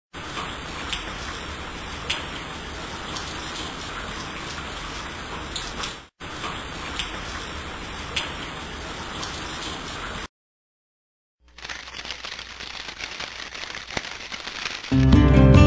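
Steady downpour of rain with a few louder drop ticks. It breaks off for an instant about six seconds in and stops about ten seconds in. A second later it returns sparser and more crackly. Music comes in near the end.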